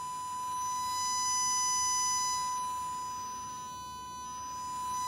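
A steady 1 kHz sine-wave test tone from a small 8-ohm speaker driven by a breadboard three-stage transistor audio amplifier. The pitch holds while the loudness rises, dips about four seconds in, and rises again as the volume potentiometer is turned.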